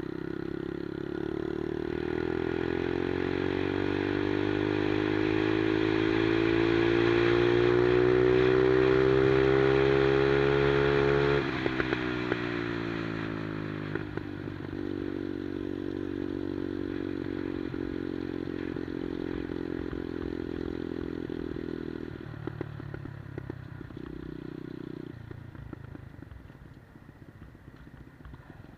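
The single-cylinder four-stroke engine of a 110cc Monkey-style minibike revs up steadily and grows louder under acceleration. About eleven seconds in its pitch drops sharply as the throttle comes off. It then runs at a steady pitch, steps lower, and fades away near the end.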